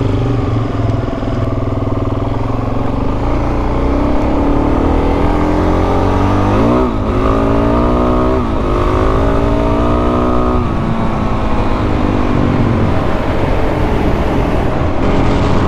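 Dual-sport dirt bike's single-cylinder engine running at riding speed, with wind noise. About seven seconds in, the revs dip and climb twice as it shifts up, then ease off near eleven seconds.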